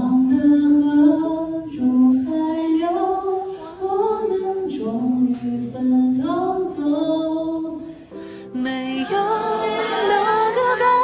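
A high, clear male voice singing a slow melody a cappella, holding long notes with vibrato.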